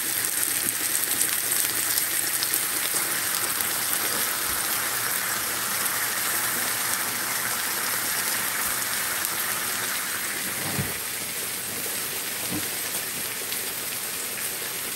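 Breaded country fried steak frying in hot oil in a skillet: a steady sizzle, a little fainter after about eleven seconds.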